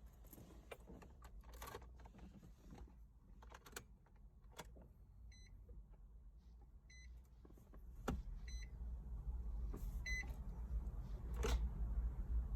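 A car's warning chime beeps four times, about a second and a half apart, with a few sharp clicks in between and a low rumble building toward the end. The clicks fit the single click a burnt-out starter gives when the key is turned and the engine won't crank.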